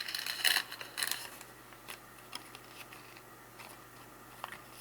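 Trading cards being handled: two short rustling slides in the first second or so, then a few faint light ticks as the cards are sorted.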